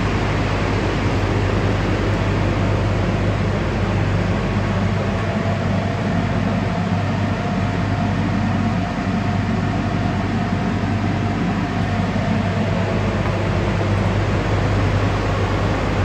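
Steady industrial machinery noise with a strong low hum, constant throughout: the background drone of a power plant around an opened feedwater heater.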